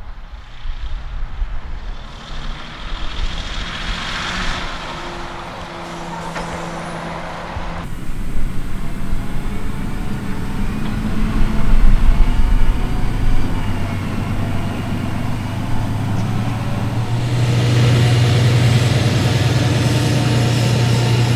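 Fendt 936 Vario tractor's six-cylinder diesel engine running under load while pulling a slurry tanker, with a steady low drone that grows louder and steadier in the last few seconds.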